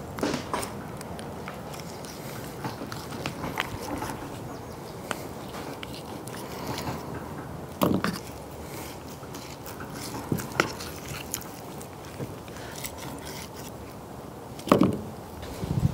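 Boning knife trimming sinew off a raw beef flat iron steak on a wooden cutting board: quiet slicing and scraping, with a few short louder knocks.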